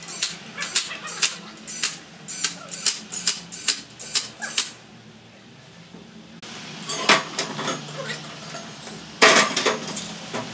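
A run of sharp metallic clicks, about three a second, that stops about halfway through. After a short lull comes irregular knocking and clatter of metal parts being handled, with the loudest knock near the end.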